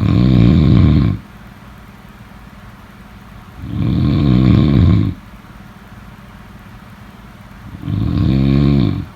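Loud snoring: three snores about four seconds apart, each lasting a little over a second.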